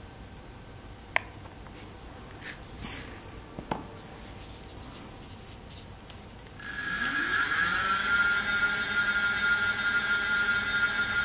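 A sharp click from a display button about a second in, a few small clicks after. Then, about two-thirds of the way in, a 24 V 250 W brushless geared hub motor spins up with a rising whine and settles into a steady whine, running unloaded at its top speed.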